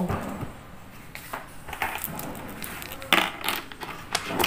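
A ring of keys jingling and clicking against a small metal cam lock as a key is worked into it, a few sharp metallic clicks with the loudest about three seconds in.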